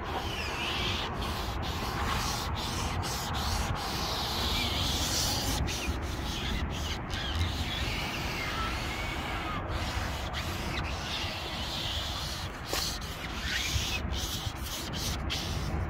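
Foam applicator sponge rubbing steadily over textured black plastic wheel-arch trim as a trim coating is worked into it, a continuous scrubbing noise.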